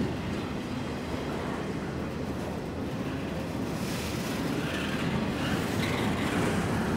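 Double-stack intermodal well cars of a freight train rolling past, a steady rumble of steel wheels on rail, with a higher hiss growing in the second half.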